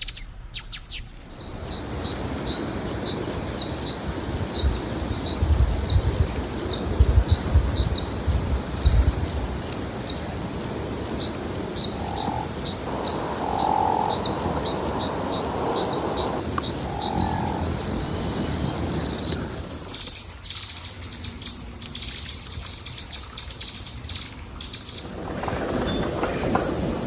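Birds chirping: many short, high chirps repeating throughout, with a few lower held notes in the middle and some low rumbling noise in the first third.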